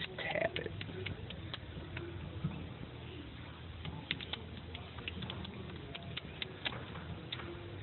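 Scattered small pops and clicks over a low steady hum, from pork ribs cooking and being glazed on a barbecue grill.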